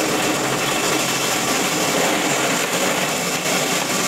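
Steady, loud mechanical noise with no breaks or distinct strikes, like running machinery.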